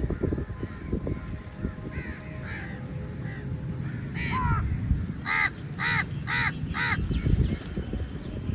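Crows cawing: a few scattered calls, then a run of four loud caws about half a second apart in the second half. A steady low noise runs underneath.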